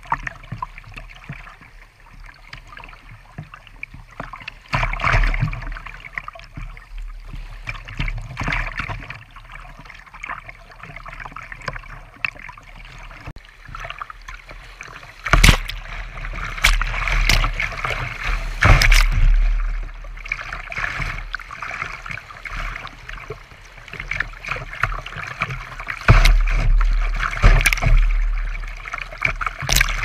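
Rushing creek water under a kayak running a riffle, with waves slapping the hull and splashing over the bow and against the bow-mounted camera in several loud surges, heaviest in the second half.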